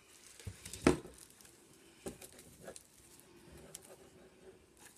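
Fingers and fingernails picking at the clear plastic wrapper on a pack of patterned paper: small crinkles, scratches and taps, with one sharper click about a second in.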